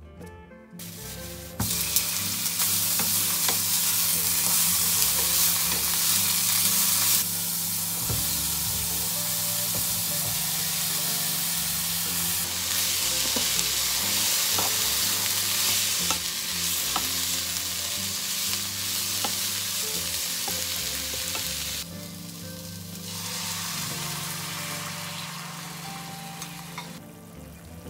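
Food sizzling and frying in a hot pan, loud and hissing, changing in level abruptly several times as if cut between shots.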